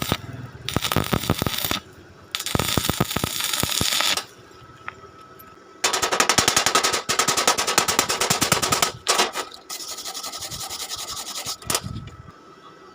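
Electric arc welding on wrought-iron bar: the arc crackles and sputters in four separate bursts, each one to three seconds long, with short pauses between them.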